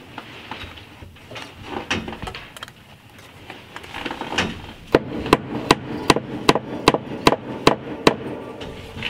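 A hammer-type hand tool striking the wood framing in a quick, even run of about nine blows, starting about five seconds in, as wire is fastened over the insulation. Softer knocks of handling come before.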